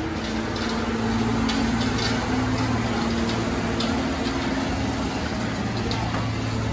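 Semi truck's diesel engine running hard and steadily under heavy load as it drags a weight-transfer sled down the pull track.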